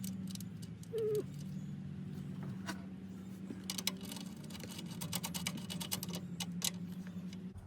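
Hand tools clicking irregularly as a fastener on a truck alternator is spun down, over a steady low hum.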